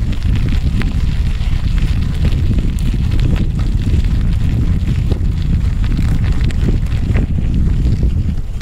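Wind buffeting a helmet-mounted camera's microphone while a mountain bike rides over a gravel track, with scattered small clicks and rattles from the bike and the gravel.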